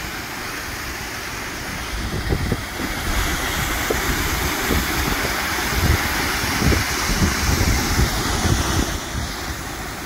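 Waterfall pouring steadily into a plunge pool, a constant rushing. From about two seconds in until near the end, wind gusts buffet the microphone with low, irregular rumbles.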